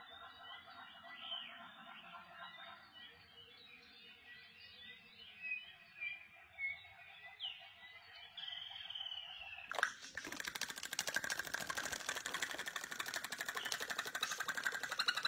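Faint bird chirps and short whistled calls over quiet outdoor background. About ten seconds in, a louder, fast rattling noise starts suddenly and continues.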